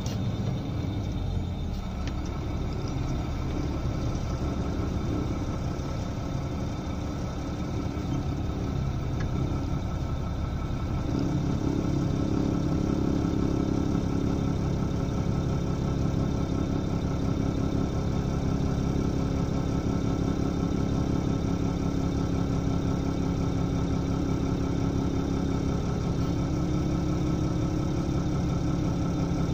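Engine of the vehicle carrying the camera running steadily at low speed, heard from inside the cab. About ten seconds in its low hum grows louder and steadier, like an engine settling to idle.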